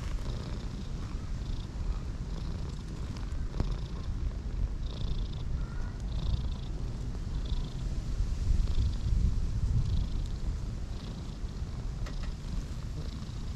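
A domestic cat purring steadily while being stroked, a continuous low rumble that swells a little about two-thirds of the way through.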